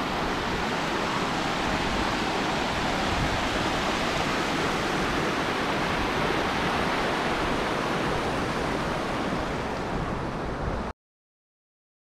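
Small mountain stream rushing and splashing over rocks in a steady, even rush of water. The sound cuts off abruptly about a second before the end.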